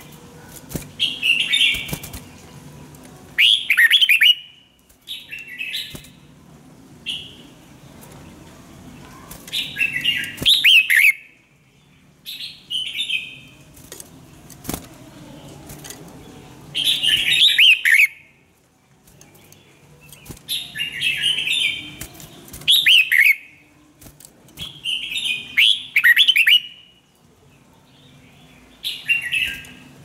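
Red-whiskered bulbul singing short, bright, warbling phrases, one every few seconds with brief pauses between them, along with a few sharp clicks.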